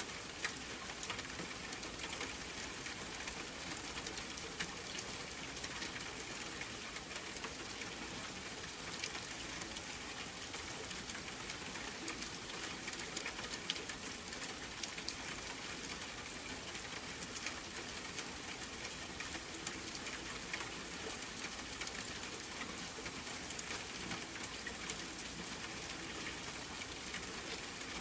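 Steady rain falling: an even hiss made of many small drop ticks, with a few louder single drops standing out now and then.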